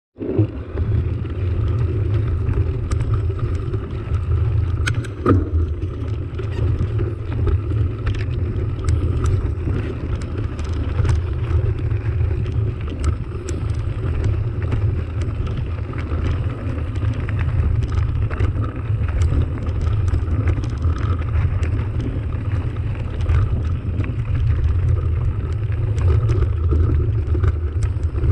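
Mountain bike rolling over a rough dirt and gravel track: a steady low rumble of knobby tyres and wind buffeting the camera microphone, with scattered sharp clicks and rattles from stones and the bike, one louder knock about five seconds in.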